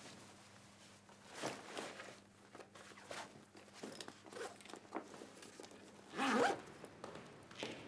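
Cloth rustling as clothes are handled and packed into a travel bag, then the bag's zipper pulled in one quick stroke about six seconds in, the loudest sound.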